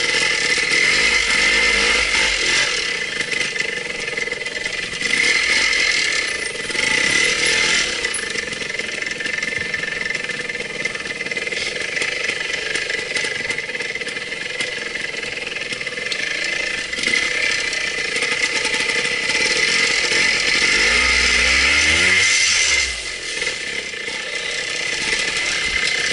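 Trial motorcycle engine running at low speed over rough ground, with a brief rise and fall in revs near the end.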